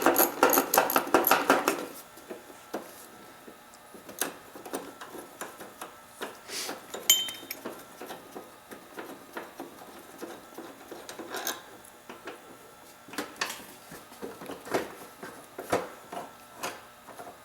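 Hand tools and metal parts clicking and clinking while working on the ATC's hub: a rapid run of clicks for about the first two seconds, then scattered light clinks and taps.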